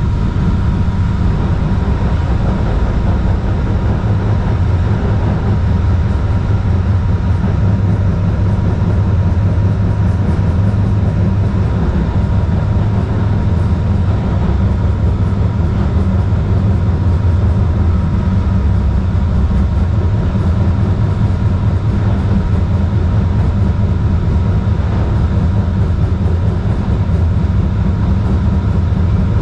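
Kinki Sharyo light rail car running at a steady speed, heard from inside the car: a loud, even low rumble of the wheels on the track with a thin steady tone above it.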